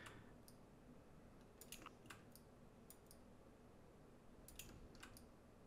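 Near silence: faint room tone with several scattered computer mouse clicks.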